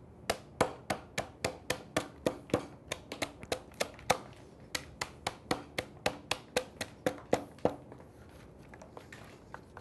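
Claw hammer striking out the thin slices of wood left between circular-saw kerfs in a board, a steady run of sharp knocks about three a second as the wafers break away. The strikes stop about three-quarters of the way through, leaving only a few faint taps.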